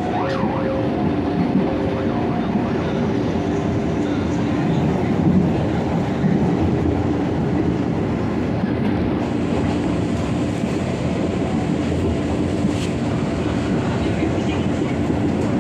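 KRL electric commuter train running along the track, heard from inside the carriage: a steady rumble of wheels on rails with a hum of several held tones and an occasional click.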